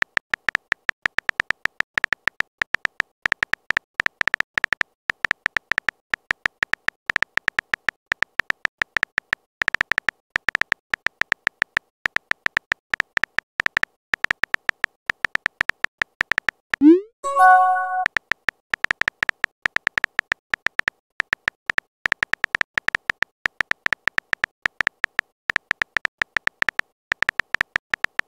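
Texting-app keyboard sound effect: a fast, continuous patter of small pitched typing clicks as a message is typed letter by letter. About 17 s in, a short rising bloop marks the message being sent, then the typing clicks resume.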